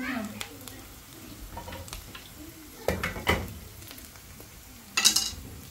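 Chopped onions sizzling as they fry in a pot, stirred with a wooden spatula, with several sharp clatters of utensil and cookware: one at the start, two near the middle and the loudest about five seconds in.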